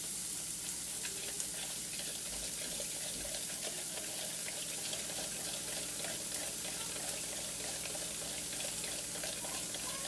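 Breakfast sausage frying in a pan, a steady sizzling hiss with many small crackles.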